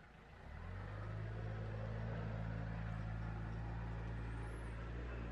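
A steady low machine hum comes up quickly about half a second in and then holds at one pitch.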